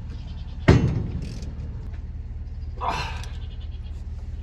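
Tractor engine idling steadily. A single loud thunk comes about a second in, and a brief vocal cry near three seconds.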